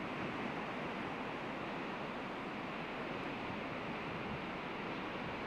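Steady rushing of ocean surf breaking on a shore.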